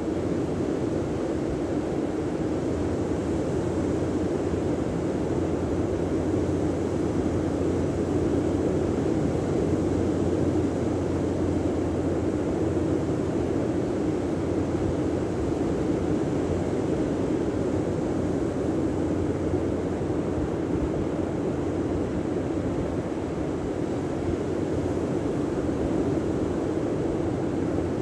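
Steady rushing of wind and breaking sea surf, an even, unbroken noise.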